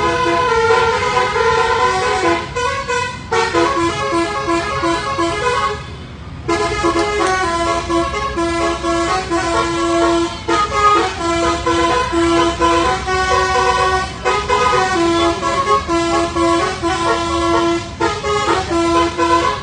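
Basuri telolet multi-tone horn playing a repeating tune in short rhythmic toots, with a brief break about six seconds in.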